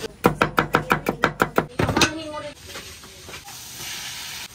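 A metal spatula clatters quickly against a wok of sautéing onions, about a dozen rapid strokes. At about two seconds, chopped pork innards are poured into the hot oil and set up a steady sizzle.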